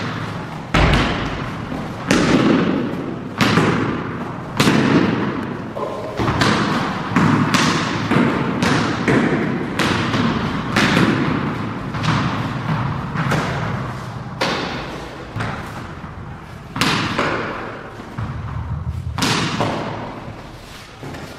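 A cricket bat striking hand-fed balls again and again, about one hit a second, with balls landing on a tiled floor. Each hit rings on in a long echo off the bare walls and floor.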